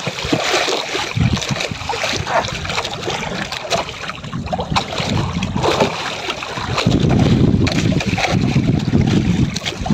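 Sea water splashing and slapping against the side of a small outrigger boat, where a landed wahoo is held at the hull with its tail in the water. Wind rumbles on the microphone, heaviest in the last few seconds.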